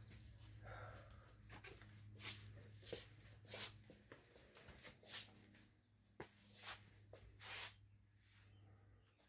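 Near silence: a faint steady low hum that fades out near the end, with scattered soft clicks and rustles of someone moving about a small room.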